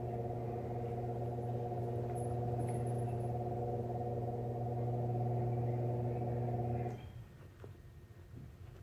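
A steady machine hum, low and even, that cuts off suddenly about seven seconds in, leaving a few faint clicks.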